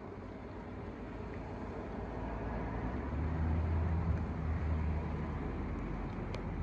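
A motor vehicle passing by: a low engine hum swells about three seconds in and then fades, over a steady wash of outdoor noise.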